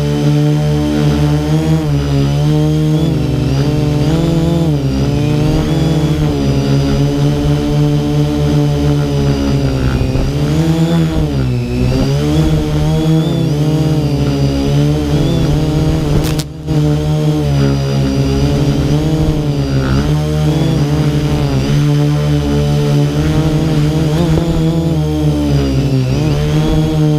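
Small off-road motorbike engine running along a trail, its pitch rising and falling as the throttle is opened and eased off. The sound cuts out for a moment about sixteen seconds in.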